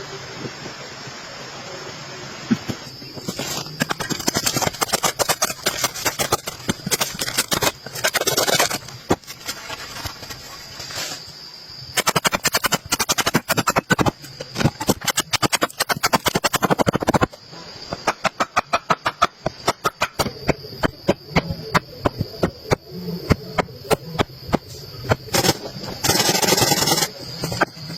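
A long series of sharp knocking and scraping strokes, rapid and irregular at first, then slower at about two a second, with a steady high insect chirr behind it.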